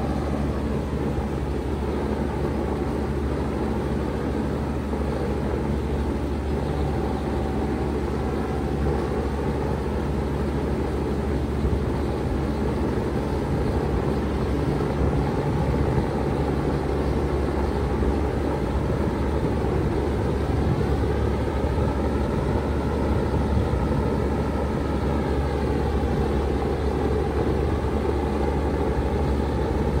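A 2.5-ton Bard wall-hung heat pump running steadily in heat mode: a low, even hum under a constant rushing noise.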